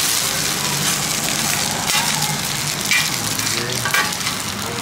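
Street-stall food sizzling as it fries, a steady hiss with scattered small crackles.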